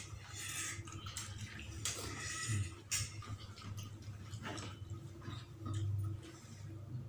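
Eating sounds of a man eating Javanese fried chicken and rice by hand: chewing and wet mouth sounds, with small clicks and knocks of hand and dishes on the table.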